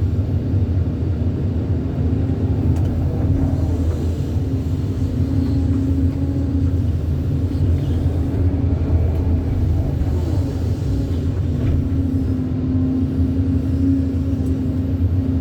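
Heavy diesel engine of an excavator running steadily at a constant low rumble.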